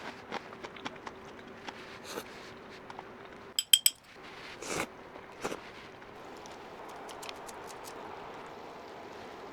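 Light taps and clicks of tableware at a meal, with a bright ringing clink of tableware about three and a half seconds in.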